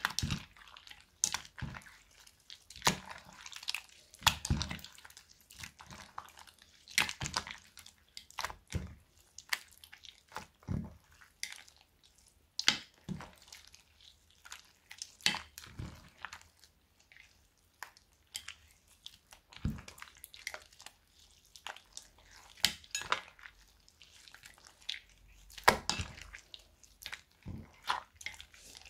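Hands squeezing and stretching wet, foamy slime: irregular squelches and short wet pops and clicks, bunched at times and with brief pauses between them.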